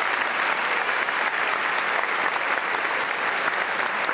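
Large audience applauding, steady sustained clapping with no break.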